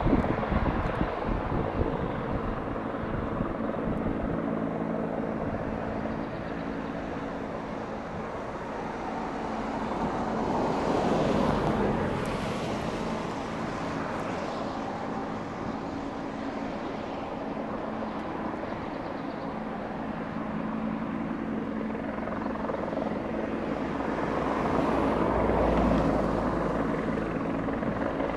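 Bell 412 helicopter hovering overhead, its rotor and turbines running steadily, swelling louder twice: about ten seconds in and again near the end.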